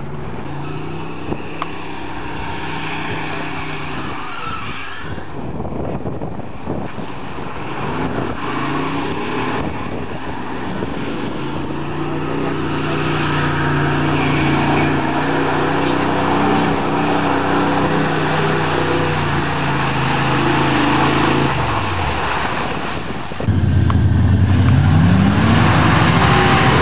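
Pickup truck engines running and revving under load through mud and water, in several cut-together clips, the pitch climbing and falling with the throttle. About three-quarters of the way in it cuts to a louder engine, a 1970s Ford pickup in a muddy field, that revs up sharply and back down.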